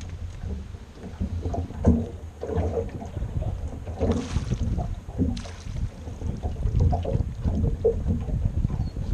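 Gusty wind rumbling on the microphone, with water sloshing and lapping around a small fishing boat. Brief gusts of hiss come about four and five seconds in.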